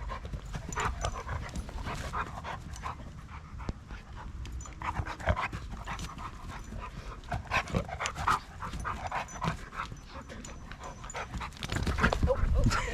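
Dogs panting hard in quick, irregular breaths during rough play between a German Shepherd mix puppy and an adult Black Lab/Catahoula mix.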